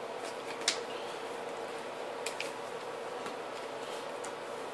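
A few light clicks of trading cards being handled, slid into card sleeves, over a steady low room hum.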